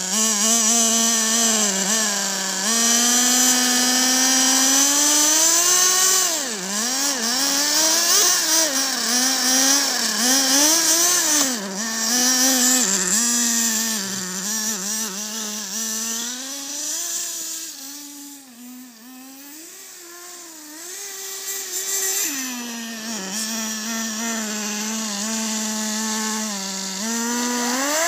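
Redcat Tornado S30 nitro RC buggy's small glow engine revving up and down continually as it is driven through snow, falling quieter for a few seconds past the middle before revving hard again near the end.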